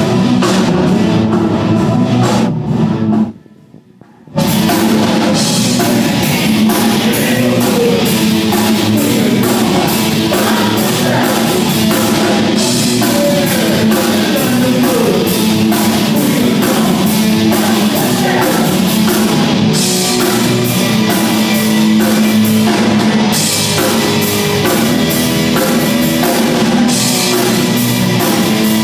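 Rock band playing live: drum kit, electric guitars and keyboard, with a woman singing. About three seconds in the band stops dead for a second, then crashes back in at full volume.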